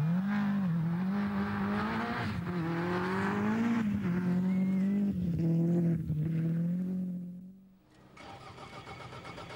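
Toyota Celica GT-Four rally car's turbocharged four-cylinder engine revving hard at speed on gravel. The pitch climbs and drops with each gear change. It fades away about eight seconds in, and a fainter steady engine drone with a high whine follows.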